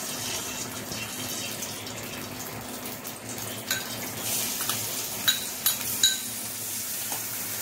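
Hot oil hissing in an aluminium kadai as chopped shallots are spooned in to fry, the hiss growing brighter about halfway through. A spoon clicks sharply against the bowl and pan several times in the second half.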